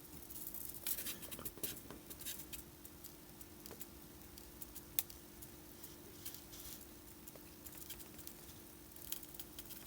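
Faint, scattered clicks and taps of metal tweezers handling tiny surface-mount LEDs on a small circuit board, with a sharper click about five seconds in, over a faint steady hum.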